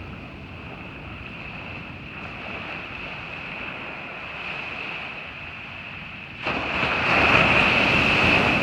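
Surf washing on a beach, then a wave breaking close in about two-thirds of the way through, much louder and lasting a couple of seconds. A steady high-pitched tone runs underneath.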